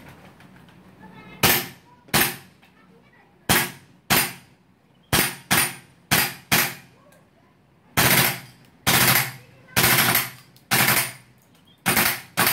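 WE SCAR-L gas blowback airsoft rifle firing: sharp cracks of gas and cycling bolt, at first singly and in quick pairs, then in short rapid strings in the second half.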